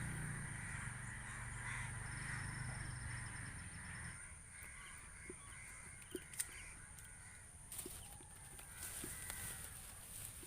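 Faint outdoor ambience with birds calling, which fade out after about four seconds, and a few light clicks later on.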